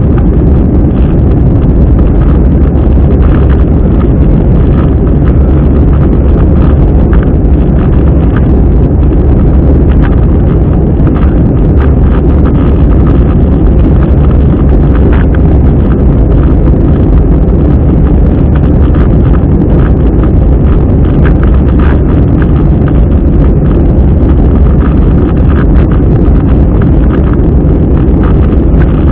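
Airbus A320 cabin noise during the climb after takeoff: a loud, steady low rumble of engines and airflow, with faint irregular clicks and rattles throughout.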